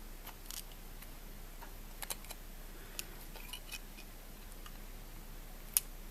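Scattered small clicks and taps of a smartphone's circuit board and ribbon-cable connector being handled and clipped back in, with one sharper click near the end.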